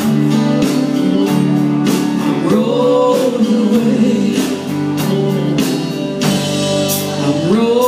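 Live country band playing: a man singing over electric guitar, electric bass and a drum kit with a steady beat.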